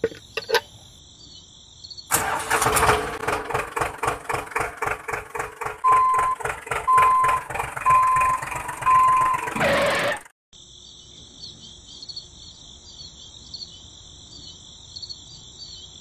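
Tractor engine running in a fast pulsing chug for about eight seconds, with a reversing alarm beeping four times, once a second, before it cuts off suddenly. Before and after, a steady high insect-like chirring.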